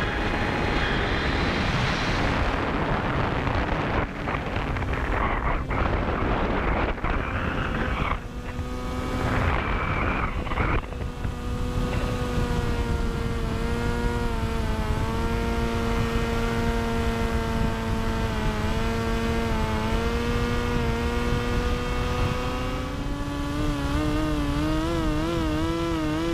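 Model airplane's motor and propeller heard from a camera on board the plane in flight: a steady drone whose pitch shifts slowly and wavers near the end. Rushing air noise over the microphone is heaviest through roughly the first ten seconds.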